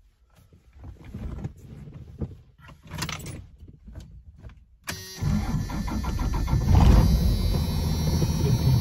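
A 5.9-litre 12-valve Cummins turbo diesel is started about five seconds in, after a few light clicks and handling noises in the cab. It comes up loudest a couple of seconds later, then runs steadily.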